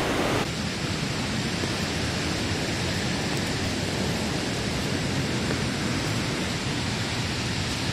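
Steady rushing of a fast, powerful mountain stream, heard as an even wash of water noise.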